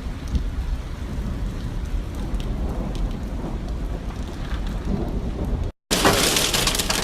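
Rainstorm: a deep, steady rumble of wind and rain. After a brief cut near the end it gives way to the loud, bright hiss of heavy rain pouring down.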